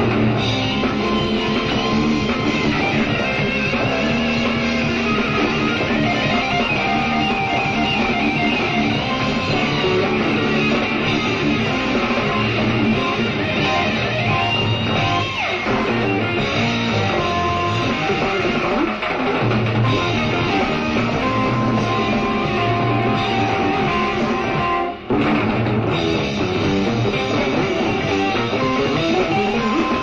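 Jazz-rock fusion band playing live: electric guitar, electric bass, keyboards and drum kit, from a soundboard recording of an FM broadcast. The playing dips briefly once, late on.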